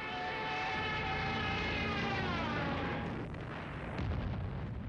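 Aircraft engine drone sweeping over, its pitch falling as it passes, then a bomb explosion about four seconds in.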